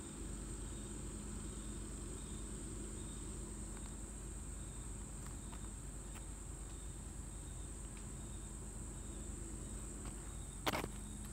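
Insects calling in a steady, high-pitched drone, with a low steady hum beneath and a single sharp knock near the end.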